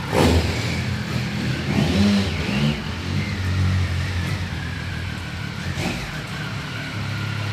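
Motorcycle engine revving as it pulls away, with a couple of throttle blips about two seconds in, then running steadily at low revs. There is a short sharp knock near the end.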